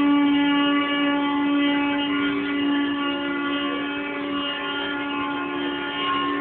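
Brazilian ox cart (carro de boi) singing: its wooden axle turning in wooden bearing blocks gives a loud, steady whining drone with several pitches held at once.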